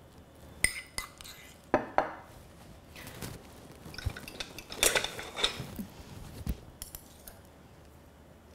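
Metal cutlery clinking against a ceramic bowl and plate, with several sharp ringing clinks in the first two seconds, then scraping and a few soft knocks as mashed avocado is spread onto mushroom caps.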